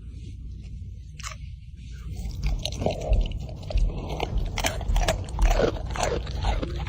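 Close crunchy chewing and biting, irregular and crackly, getting louder and denser about two and a half seconds in.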